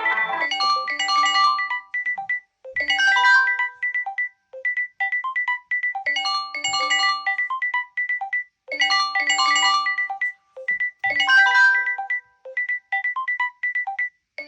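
Phone ringtone playing: a short electronic melody of bell-like notes that starts over every two to three seconds, with a quick run of short high notes between phrases.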